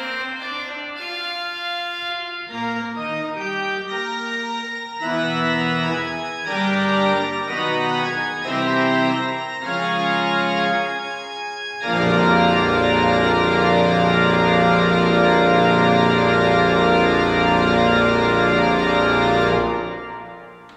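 Organ playing the closing bars of a piece: a run of changing chords, then, about twelve seconds in, a louder full final chord held for about seven seconds. The chord is released and dies away in the church's echo.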